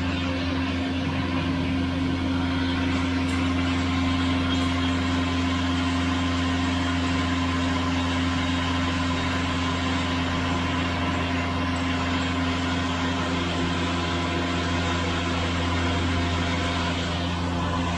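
Flour-mill machinery running steadily: a constant, even hum with several held tones and no change in pace.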